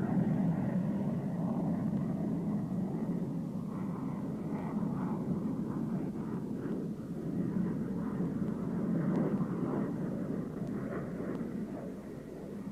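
Steady jet aircraft noise in flight: an even, low rumble with little treble and no distinct events.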